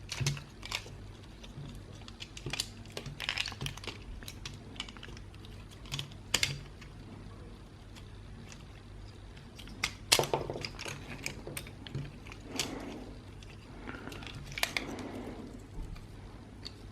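Irregular small plastic clicks, taps and scrapes from hands working on an opened Xbox One controller, prying at an internal circuit board that won't lift out.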